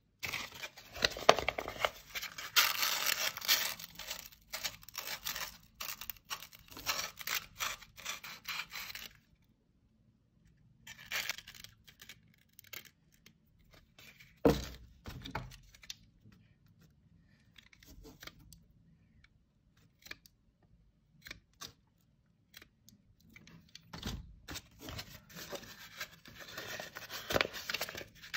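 A small carved wooden part being hand-sanded on a folded sheet of aluminium oxide sandpaper. Rough rasping strokes come in runs with short pauses, and there is a quicker run of strokes near the end.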